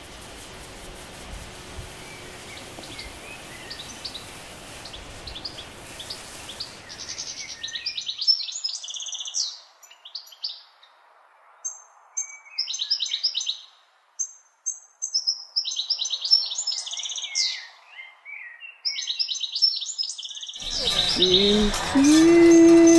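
Small birds chirping and singing in short repeated trills, first faintly over a background hiss, then clearly over near silence. Near the end a loud held musical note cuts in.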